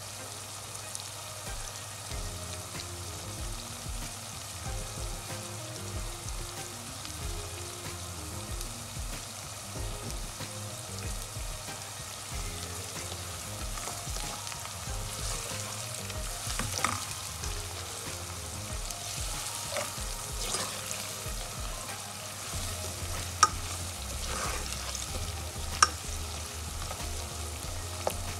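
Sliced onions sizzling steadily in hot oil in a non-stick wok. From about halfway through a spatula stirs them, with a few sharp knocks of the spatula against the pan, the two near the end being the loudest.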